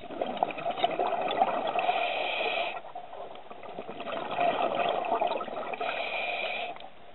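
Scuba diver exhaling through a regulator underwater: two long bursts of bubbling, each about three seconds, with a short pause between them for the in-breath.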